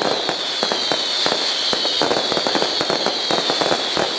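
Daytime fireworks going off overhead: a rapid, irregular string of firecracker bangs and crackles over a high whistle that slides slowly down in pitch.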